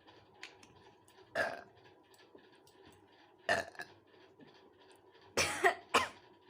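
A young woman burping four times: short burps about a second and a half in and about three and a half seconds in, then a longer burp followed closely by a short one near the end.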